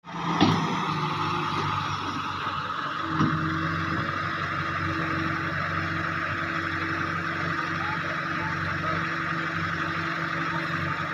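Diesel engine of a wheeled Hitachi excavator running steadily at an even speed, with two sharp knocks, one under half a second in and another about three seconds in.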